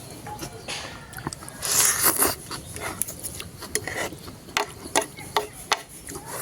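Close-miked eating of a plate of noodles: a noisy burst about two seconds in, then a run of sharp irregular clicks and crackles from chewing and the utensil against the plate.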